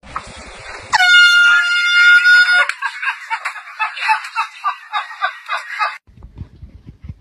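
Water splashing for about a second, then a loud, steady air-horn blast lasting about a second and a half, followed by a run of short pulsing honks about three a second.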